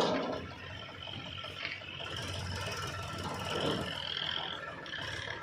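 Diesel engine of heavy earth-moving machinery running steadily, with a brief higher-pitched whine about three and a half seconds in.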